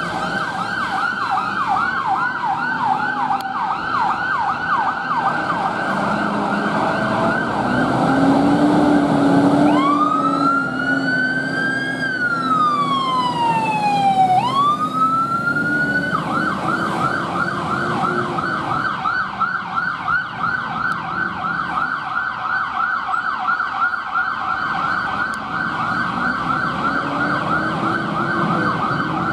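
Fire engine sirens on a turnout: a fast yelp, changing about ten seconds in to a slow wail that rises, falls and rises again, then back to the fast yelp.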